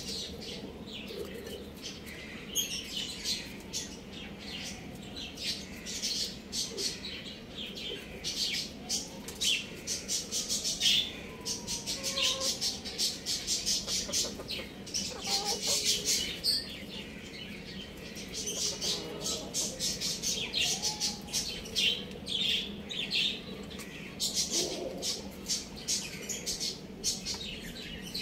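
Many birds chirping rapidly and densely in high-pitched short notes, with a few fainter, lower calls that slide in pitch.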